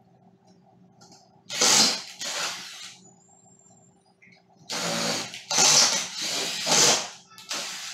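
Cordless drill driving screws up through a metal mounting bracket into the ceiling, running in short bursts: two about a second and a half in, then several more from about five seconds in.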